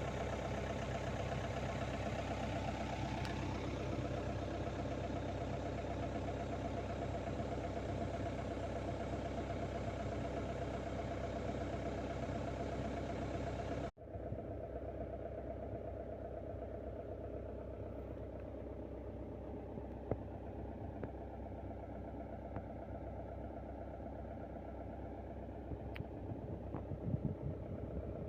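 Mini excavator's engine running steadily while it works. The sound drops out for an instant about halfway and comes back duller, and a few sharp knocks come in the second half.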